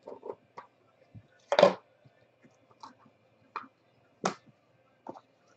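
Hands handling a small box of trading cards and a hard card case, giving a few scattered sharp clicks and taps. The loudest click comes about a second and a half in.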